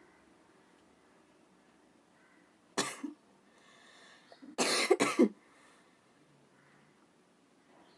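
A person blowing their nose hard, twice: a short blow about three seconds in, then a longer, louder one in two pushes about five seconds in.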